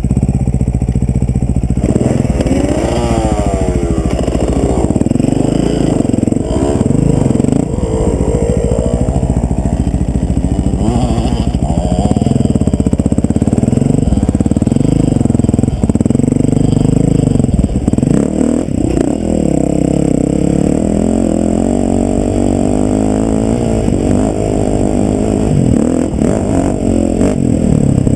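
KTM 450 EXC's four-stroke single-cylinder engine under load on a climb, its pitch rising and falling again and again with throttle and gear changes.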